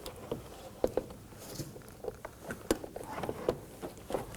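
Irregular light clicks and taps of a plastic interior door panel being handled and hung back onto a car door.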